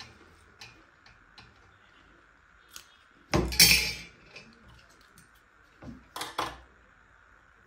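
Dishes and cutlery clattering: a few light clinks, one loud clatter about three and a half seconds in, and two more knocks around six seconds in.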